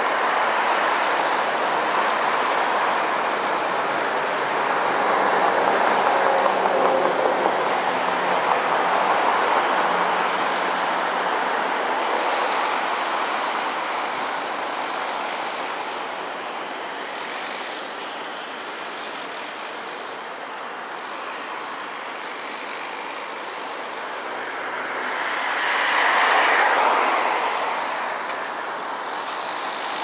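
Steady hiss of road traffic, with a long louder stretch of passing vehicles around 5–10 seconds in and one vehicle swelling past and fading about 26 seconds in.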